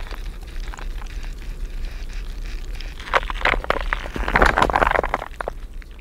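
Metal spoon stirring and clinking in a glass of water, picked up by a piezo hydrophone submerged in the glass: a run of sharp clicks, scrapes and crackles, densest in the second half, over a steady low hum.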